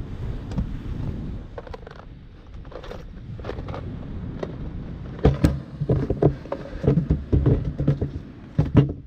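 Wind buffeting the microphone over the wash of surf, then, from about five seconds in, a quick series of loud knocks and scrapes as the camera is handled and moved.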